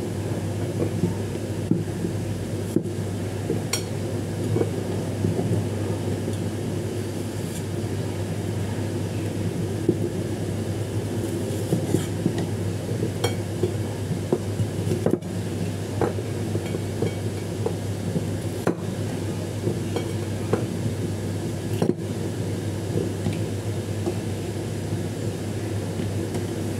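Cleaver chopping chayote: irregular knocks of the blade, over a steady low hum.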